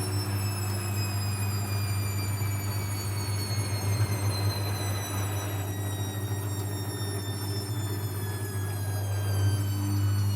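Techwood WB 91042I washing machine running, a steady low hum under a motor whine that falls slowly and evenly in pitch as the drum's speed drops.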